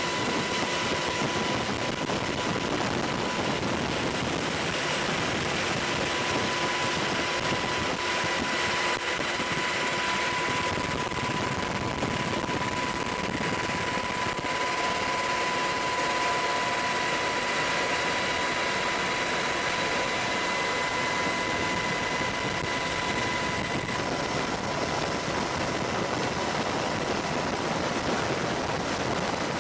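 AH-64 Apache helicopter's turbine engines running steadily: a high, steady whine over an even rush of noise.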